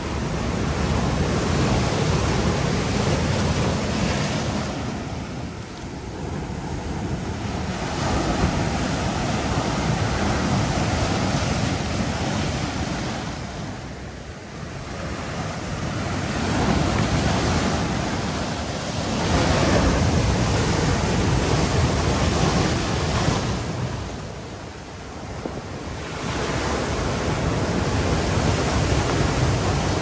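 Sea waves breaking over a rocky shore of boulders, foamy surf washing in and draining back between the stones. The wash swells and eases in long surges, dipping three times.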